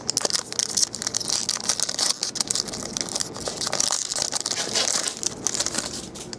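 A trading card pack's wrapper crinkling continuously as it is torn open and handled.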